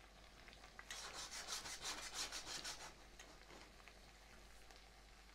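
Butter sizzling softly in a wok with ravioli frying in it. About a second in, a quick rhythmic rasping rub runs for about two seconds, then the soft sizzle continues.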